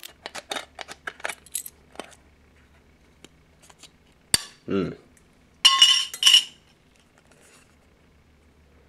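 Small folding military can opener cutting around the lid of a steel ration can: a quick run of metal clicks over the first two seconds, then a single sharp click as the cut finishes and the lid is lifted. A little past the middle comes a louder, brief metallic scrape.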